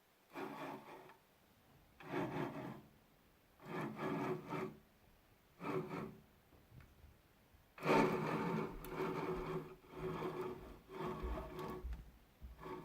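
Harsh grinding from the axis screws and screw bearings of a 6040 CNC router as its axes are moved with no stepper motors fitted, in about eight short spells of a second or so with pauses between. The owner takes it for worn-out axis screw bearings.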